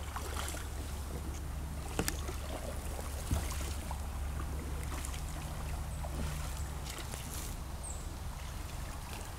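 Canoe being paddled: paddle strokes splashing in the water, with two sharper knocks about two and three seconds in, over a steady low rumble.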